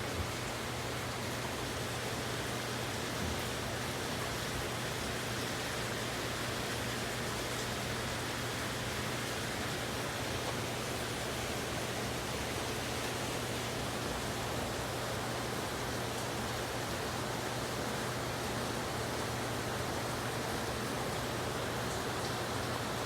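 Steady rain: an even, unbroken hiss with no single drops standing out, over a low steady hum.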